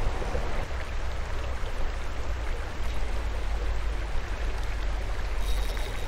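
Steady rushing of creek water running over rocks below a spillway, with a low rumble underneath.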